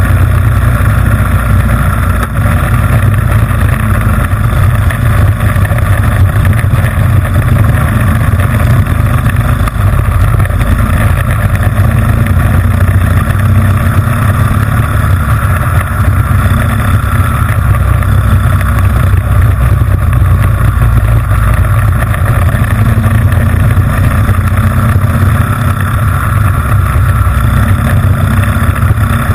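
Honda GX160 single-cylinder four-stroke engine running hard at steady high revs under race load, loud and close from on board the kart.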